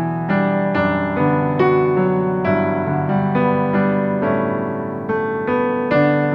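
Solo piano playing a slow hymn tune, about two notes a second over held chords, each note fading after it is struck.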